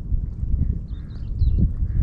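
Wind buffeting the microphone as an irregular low rumble, with a few faint high chirps about a second in.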